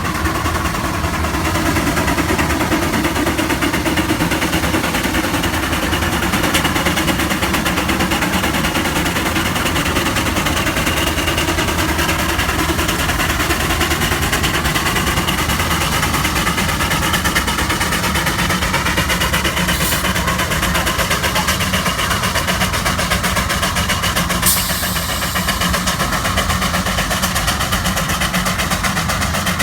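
An engine running steadily, with rapid, even pulses and faint tones that drift slowly in pitch. A single sharp click comes about 24 seconds in.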